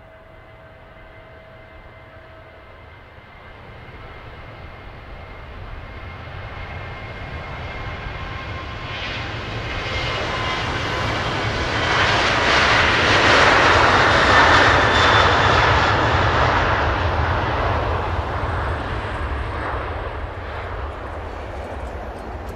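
A fixed-wing airplane flying past. Its engine noise grows steadily louder, peaks a little past the middle, then slowly fades.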